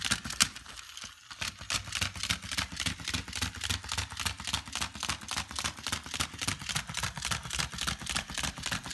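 Battery-powered Chubby Puppies Dalmatian toy hopping, its mechanism and feet clicking in a fast, even rhythm of about five or six clicks a second. The clicking briefly drops away about a second in, then resumes.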